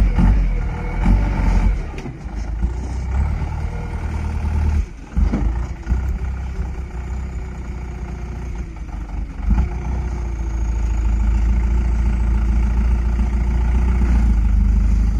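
Heavy logging truck's diesel engine running with a deep rumble. It drops off briefly about five seconds in, then builds steadily louder through the second half.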